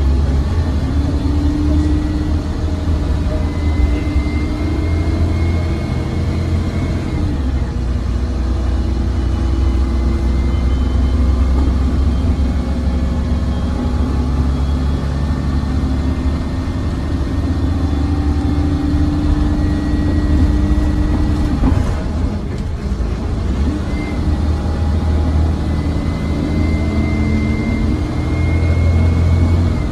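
Interior sound of a 2005 MAN 15.220 bus's rear-mounted diesel engine and driveline under way, heard from inside the cabin: a steady low rumble with a whine that climbs in pitch as the bus gathers speed, a few times over.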